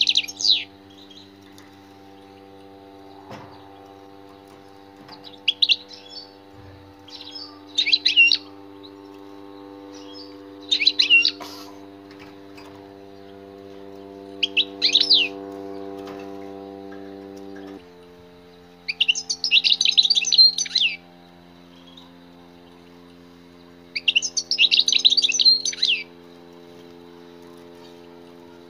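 European goldfinch singing in short twittering phrases, the two longest in the second half. A steady low electrical hum runs underneath and shifts pitch about two-thirds of the way through.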